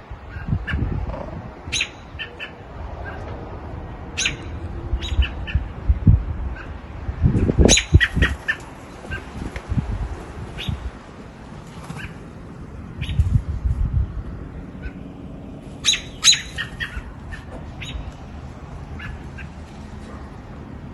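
Birds giving short, sharp chirps at irregular intervals, some in quick clusters. Low thumps and rumbles sound in between, the loudest about seven seconds in.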